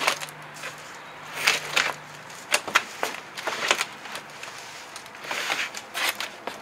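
Clear plastic wrapping around a generator crinkling and rustling in irregular bursts as it is pulled and handled inside its cardboard box.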